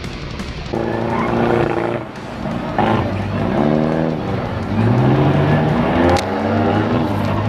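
Compact four-cylinder derby car's engine revving up and down several times, heard from inside the car.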